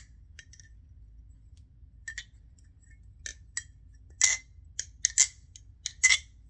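Nabalis Impulse balisong being flipped: its handles click and clack sharply against each other at irregular intervals, sparse at first and coming thick and fast over the second half.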